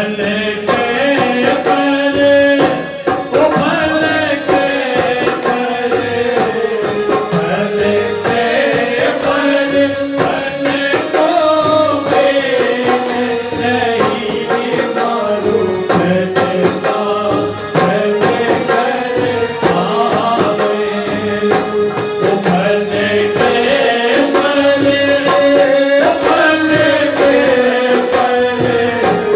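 Phagan folk song with a group singing a chant-like melody over a steady hand-drum and jingle beat.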